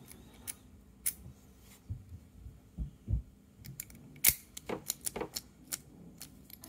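Small metal clicks and taps from a lock cylinder being handled and worked in the hands, with a couple of soft low thumps about three seconds in, a sharp click just after four seconds, and a run of quicker clicks after that.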